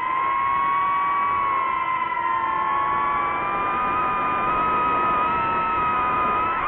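Quadcopter motors and propellers of a DJI FPV drone in flight, a steady whine of several close tones that drift slowly up and down in pitch as the motor speeds change.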